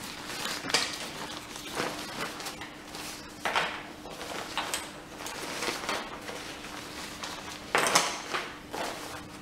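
Rustling and swishing of a waterproof 70D nylon compression sack being handled and spread out by hand on a wooden table, in several short bursts, the loudest near the end.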